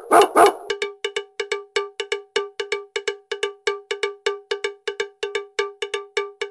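Background music track: a single bell-like percussive tone struck repeatedly in a quick, uneven rhythm, about three to four hits a second, each hit ringing briefly. Two loud noisy hits open it before the pattern starts, about half a second in.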